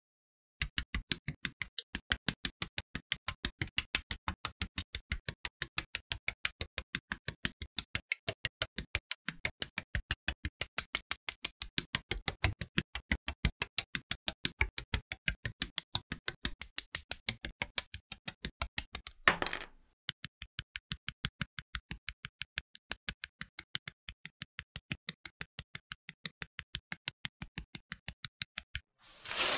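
Sharp plastic clicks of model kit parts being snipped from the sprue with side cutters and clicked together, about five or six a second in an even rhythm with silence between them, as in a speed-build edit. A short hiss breaks in about two-thirds through, and a louder one comes at the very end.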